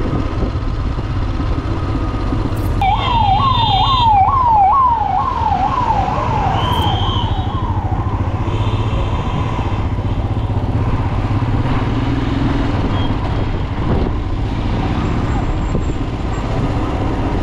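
A siren yelping: a quick rising wail, repeated about eight times over some five seconds, a few seconds in. Under it is a steady low rumble of engine and road noise.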